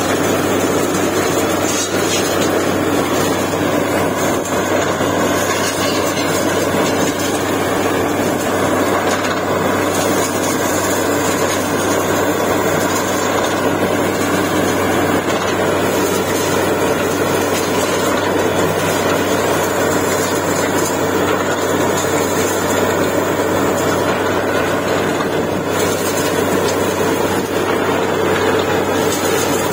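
Truck-mounted borewell drilling rig running steadily while drilling, a loud unbroken engine drone as muddy water and cuttings are flushed up out of the bore.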